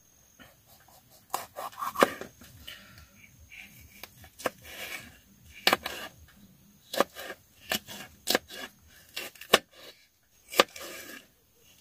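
Kitchen knife slicing a green bell pepper on a plastic cutting board: irregular sharp knocks of the blade hitting the board, with short crisp crunches as it cuts through the pepper.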